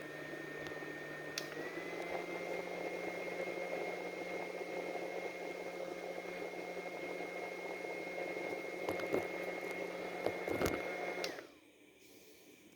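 Memoo handheld fan's small electric motor running with a steady high-pitched whine over a lower hum. The whine steps up slightly in pitch and gets a little louder about a second and a half in. A few sharp clicks come near the end, then the fan is switched off and the whine falls away quickly.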